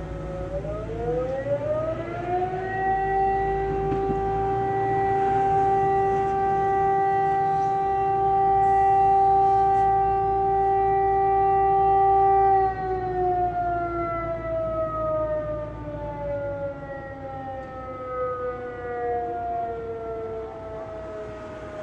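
Civil-defence siren sounding a fire-brigade alarm blast: the wail rises over about two seconds, holds one steady pitch for about ten seconds, then winds down slowly with falling pitch. This is a siren alert calling out the volunteer fire brigade.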